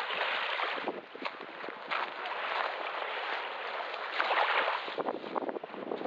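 Gentle sea waves lapping and washing onto a sandy shore: a rushing hiss that swells twice, loudest about four to five seconds in.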